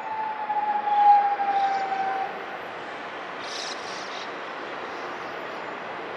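Keio Inokashira Line 1000 series electric train running past, its motor whine gliding down in pitch, loudest about a second in and dying away just after two seconds, leaving steady running noise.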